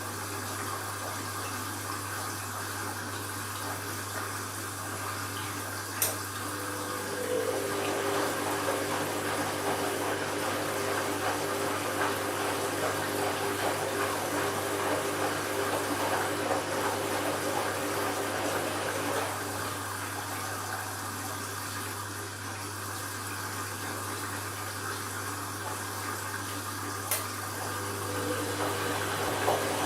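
Candy washing machine running an empty bleaching cycle, with water running through it over a steady low hum. A steadier motor tone joins for about twelve seconds from around seven seconds in, and there are two sharp clicks.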